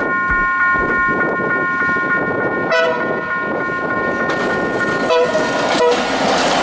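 A passenger train's diesel locomotive approaches, sounding its horn in short blasts: once about three seconds in and twice more near the end. Under the horn there is a steady, pulsing high ringing tone, like a level-crossing warning bell, and the rising rumble of the train drawing close.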